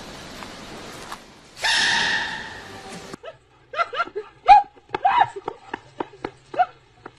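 A loud, drawn-out animal cry lasting about a second and a half that cuts off suddenly. It is followed by a small dog yipping and whining in quick, short cries, several a second.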